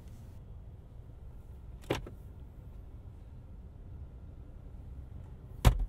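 Car glove box latch clicking open about two seconds in, then a louder knock near the end, over a low steady rumble.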